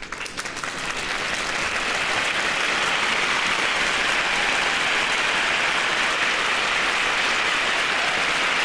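Applause from a crowd, swelling up over the first second or two and then holding steady.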